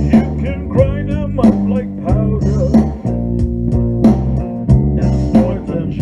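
Instrumental blues-style band music: guitar and bass guitar over a steady beat, with wavering bent guitar notes about a second in.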